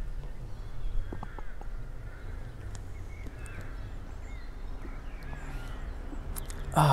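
Faint bird chirps over a low steady rumble, with a few soft clicks about a second in. Right at the end comes a man's loud, breathy 'ahh', a satisfied exhale after a swig of beer.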